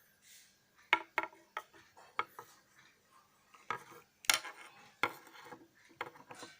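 Sharp clicks and clacks at irregular intervals, about a dozen, with brief rattling between them: the jointed parts of a mechanical bird's wing mechanism knocking together as it is worked.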